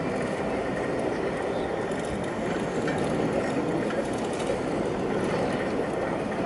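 Steady outdoor street background noise: an even, continuous rumble and hiss with no distinct events.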